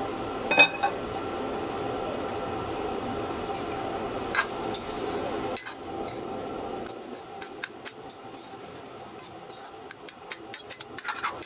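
Aluminium wok lid lifted off with a ringing metallic clank about half a second in, over a steady frying hiss, with a second clank around four seconds. The hiss then drops away and a metal ladle scrapes and taps against the wok in many short, light clicks.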